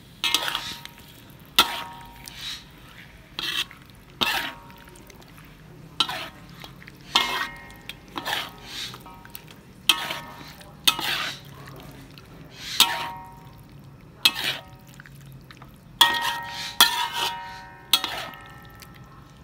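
Metal spatula scraping and knocking against a metal pan while vegetables are stir-fried, with irregular strokes about once a second, many leaving a brief metallic ring. The strokes come more thickly near the end.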